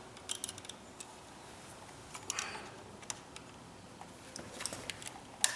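Faint ticks and scraping of a screwdriver tip worked into the release slot of a light switch's push-in wire terminal, ending in one sharp click near the end as the terminal lets the wire go.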